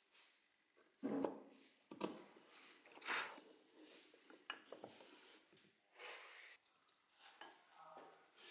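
Quiet, scattered scrapes and light taps of small wooden strips and a slim hand tool being worked in a plywood jig, a few separate strokes a second or more apart.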